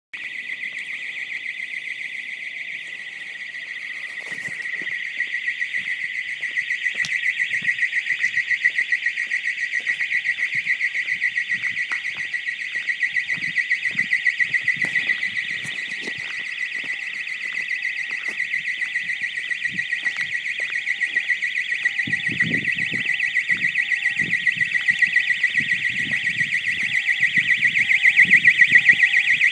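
A building's alarm sounding continuously with a very loud, high-pitched, rapidly pulsing tone. A fainter, lower beep repeats about once a second beneath it.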